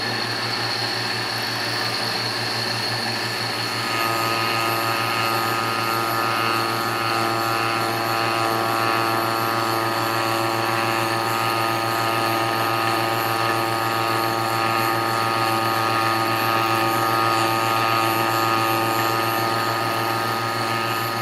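Stepper-motor-driven MDF rose engine lathe running through its final cut, the belt-driven cutter working into a small medallion. It gives a steady mechanical whine of several tones that grows a little louder about four seconds in.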